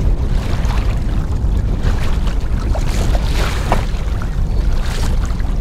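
Wind buffeting the microphone in a steady low rumble, with choppy waves slapping and splashing against the kayak hull, a little busier about three seconds in.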